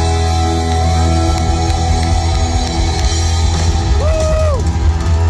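Live country-rock band on electric and acoustic guitars, keyboard and upright bass, playing held notes over a strong, steady bass, heard from the audience through a concert PA. About four seconds in, a short high tone glides up and back down over the music.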